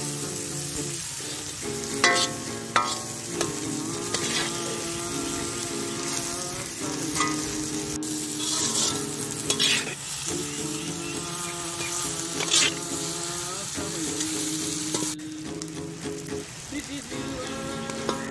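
Sliced onions and green chillies sizzling as they fry in oil in an iron kadai, being sautéed towards golden brown. A metal spatula stirs them and scrapes against the pan every few seconds. Steady held tones run underneath.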